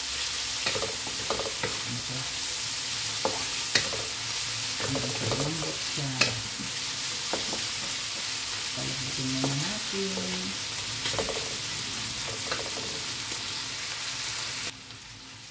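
Marinated pork pieces sizzling in oil in a pan while being stirred, with the spatula clicking and scraping against the pan now and then. The sizzle drops away suddenly near the end.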